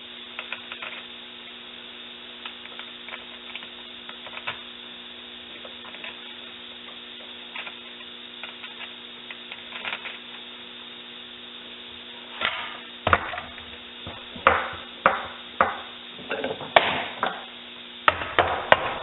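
Small clinks of tools and parts on a transmission case over a steady low hum, then, about two-thirds of the way in, a run of sharp knocks: a 46RE transmission's wiring harness connector being knocked down onto its rubber seals.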